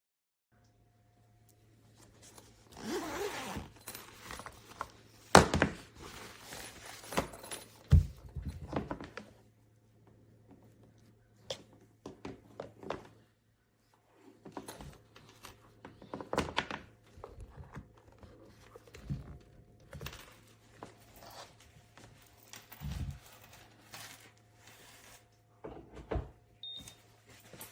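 Objects being handled: irregular knocks, clicks and rustling, two sharper knocks standing out about five and eight seconds in, over a steady low hum.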